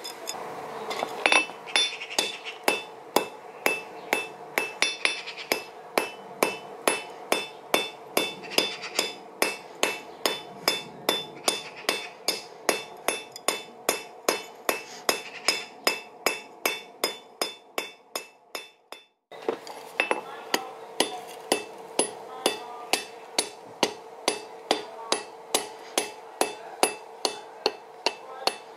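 Blacksmith's hand hammer striking a red-hot steel rod on an anvil in a steady rhythm, about two to three blows a second, the anvil ringing between blows. The hammering breaks off briefly about two-thirds of the way through, then carries on at the same pace.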